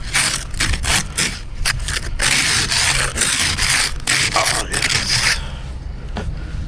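Repeated scraping strokes of a snow scraper clearing snow and ice off a car, a few strokes a second, stopping about five seconds in.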